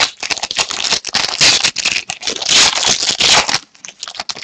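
Foil trading card pack wrapper being torn open and crinkled: a dense crackling full of small snaps that stops about three and a half seconds in, leaving a few light ticks.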